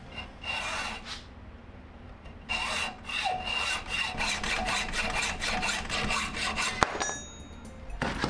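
A hacksaw blade held by hand sawing through a red wooden knife-handle block: a short run of back-and-forth strokes, then a longer steady run of quick strokes, with one sharp click about seven seconds in.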